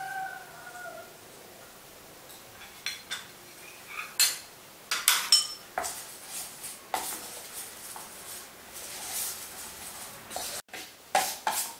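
A spoon knocking and scraping against a stainless steel mixing bowl while stirring batter. The knocks are separate, some with a brief metallic ring, loudest about four to five seconds in, with a quicker run of clinks near the end. A short falling squeak sounds right at the start.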